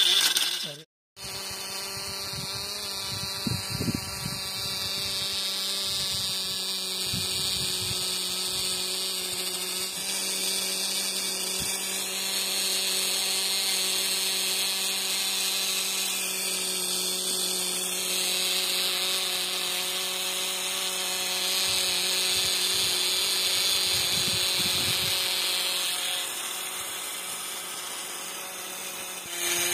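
Small electric motors of a toy borewell drilling rig running steadily, spinning drill rods down into wet mud: a steady motor whine that drops out briefly about a second in.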